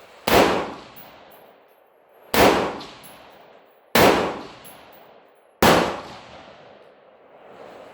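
Four single rifle shots from a 16-inch AR-15 in 5.56 fitted with a muzzle brake, fired one at a time about one and a half to two seconds apart, each followed by a short echoing tail.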